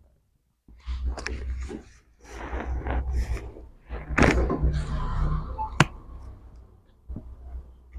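Body and hands shifting on a treatment table during a chiropractic adjustment: rustling and rubbing, with two sharp knocks about four and six seconds in.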